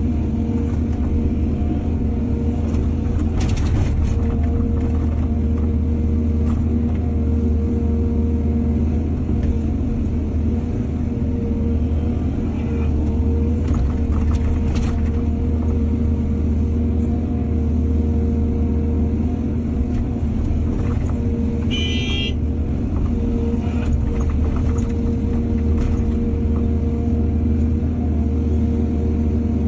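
Heavy diesel earthmoving machinery running at a steady, even hum, with a few short knocks. About three-quarters of the way through comes a brief high-pitched squeal.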